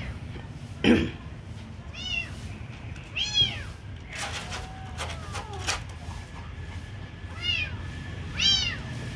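Kittens meowing, a string of short, high, rising-and-falling mews, with one sharp knock about a second in, louder than the calls.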